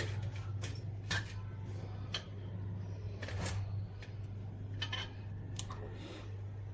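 Light, scattered clicks and clinks of metal kitchen utensils being handled, about eight irregular taps over a steady low hum.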